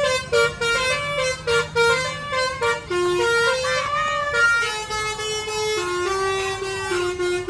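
Bus 'telolet basuri' musical air horn playing a melody: a run of quick short notes, then longer held notes stepping lower in the second half.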